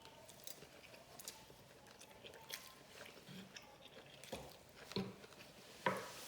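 Close-up mouth sounds of a person chewing soft seafood and rice: scattered wet clicks and smacks, a few louder ones in the second half, the loudest near the end.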